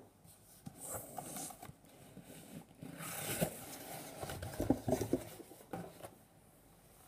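Cardboard box being opened by hand and the tissue paper inside crinkled and pushed aside, in irregular rustles and scrapes with a few knocks, the loudest a little before the end.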